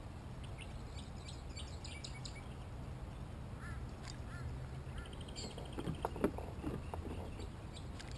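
Birds calling around the water: short high chirps, a couple of brief calls, then a quick trill. About two-thirds of the way through come a few knocks and clicks from the fishing reel and rod being handled, the loudest sound in this stretch.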